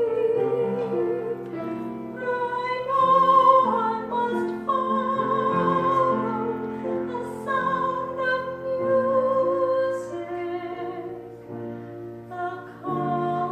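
Small vocal group singing in parts with piano accompaniment, holding long notes with vibrato.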